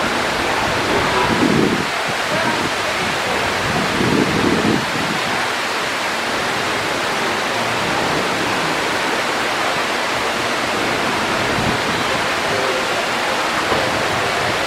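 Steady rushing of the Mirage volcano lagoon's man-made waterfall, with two brief low surges in the first five seconds.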